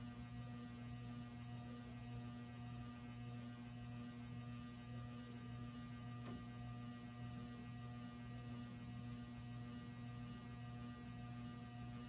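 ERS American Art Series ceiling fan's motor running on an in-between speed setting with a steady electrical hum: a low buzz with a higher overtone. This complaining hum comes with running the fan on a partial speed rather than full power.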